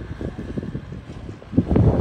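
Wind buffeting the microphone in irregular low gusts. It eases past the middle and surges again sharply near the end.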